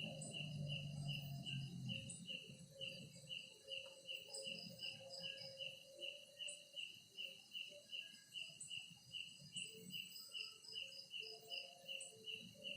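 A cricket chirping steadily at night, a high pulsing chirp repeated about four times a second, faint.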